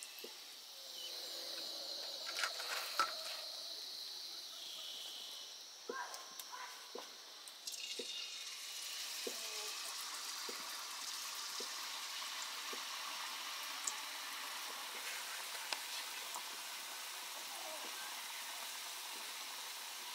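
Rice batter for sel roti frying in hot oil in a steel wok, a steady sizzle that swells about seven and a half seconds in. Before that, light clicks and knocks as the batter is scooped from its pot.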